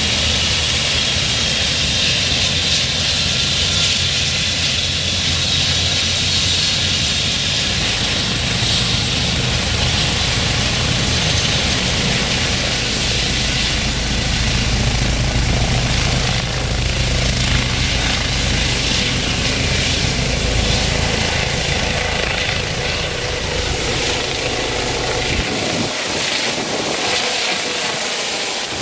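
Eurocopter EC135 helicopter running, its twin turbines giving a thin high whine that climbs slightly and then holds steady over a rushing rotor noise. The deep rumble underneath drops away about 25 seconds in.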